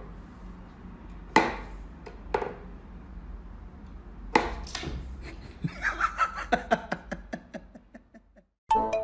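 A treadmill running with a low steady hum, a few sharp knocks, and then past the middle a quick run of light ticks.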